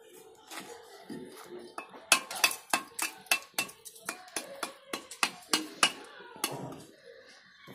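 Mason's brick hammer striking a fired clay brick to chip it to size: sharp knocks about four a second, starting about two seconds in and stopping about a second before the end.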